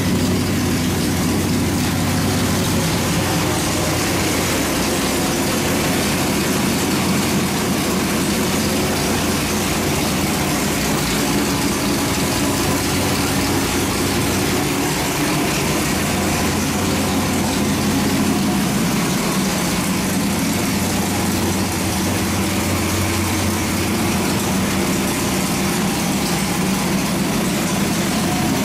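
Small-block Chevy 427 V8 race engine with a solid roller cam, running steadily on an engine dyno at a constant idle speed, with no revving.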